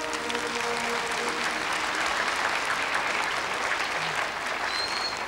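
Audience applauding, with the last held notes of a song fading out in the first second.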